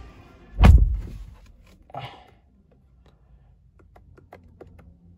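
A pickup truck's door is shut from inside the cab, giving one heavy thud less than a second in. A few faint clicks follow as the steering-wheel buttons are pressed to step through the dashboard menu.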